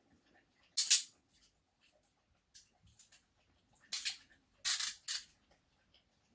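ASP Model 100 hinged handcuffs being picked open with a bobby pin: a sharp metal rattle about a second in, then a quick cluster of metallic clicks and rattles between four and five seconds in as the cuff bows swing open.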